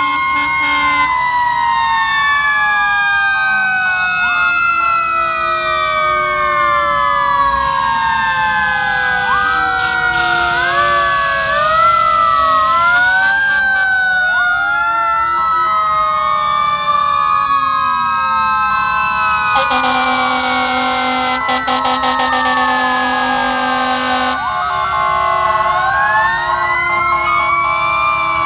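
Several fire truck sirens sounding at once, overlapping wails that rise and fall, some winding slowly down over several seconds. A steady horn tone sounds over them for about four seconds, about two-thirds of the way through.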